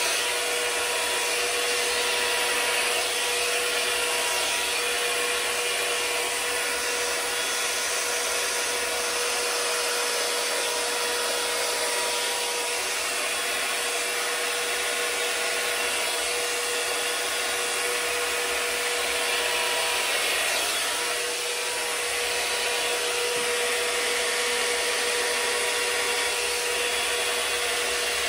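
Handheld electric hair dryer running steadily: a rush of blown air over a steady motor whine.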